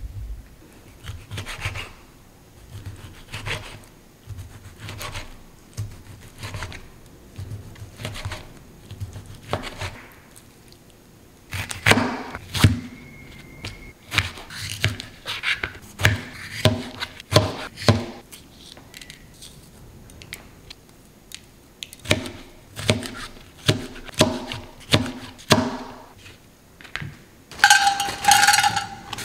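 Kitchen knife chopping food on a cutting board: a long run of irregular knocks, softer at first and louder and faster in clusters from about halfway.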